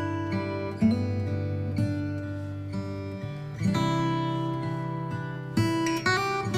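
Background music: acoustic guitar playing chords, with a new chord plucked every second or two.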